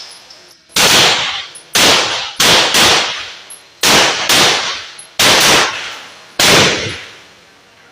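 Firearms being fired at a shooting range: six sharp gunshots at uneven intervals, roughly a second apart. Each shot rings out and decays over about half a second.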